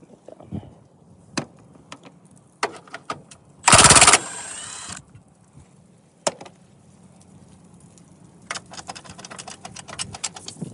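Wrench and socket work on engine-bay bolts: scattered metal clicks and knocks, and a loud burst lasting about half a second about four seconds in. Rapid ratcheting clicks fill the last two seconds.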